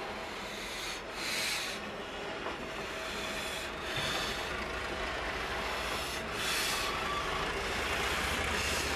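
Slow-moving train of steam locomotives, 3801 towing the dead, stripped 3830, rolling past, its wheels scraping and grinding against the rails in uneven surges over a low rumble that grows from about four seconds in.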